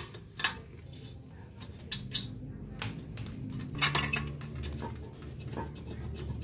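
Rusty bicycle brake caliper being worked off the fork by hand, its metal parts clinking and rattling, with several sharp metallic clicks spread through, the loudest near four seconds in.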